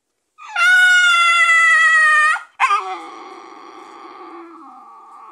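Pit bull dog howling in pain. One high cry is held for about two seconds. A second cry breaks in sharply, drops lower and trails off more quietly. The dog is critically ill, with badly swollen legs, and is writhing in pain.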